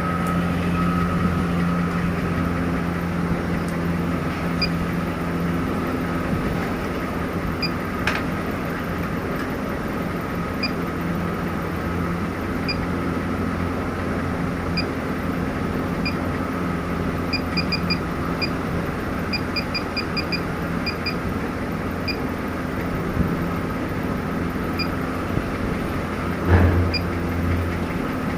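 Short, high beeps from an ABB CP430 HMI touch panel's buzzer at irregular intervals, sometimes several in quick succession, typical of touch-press feedback while the touchscreen is tested. Under them runs a steady low hum, and there is a single knock near the end.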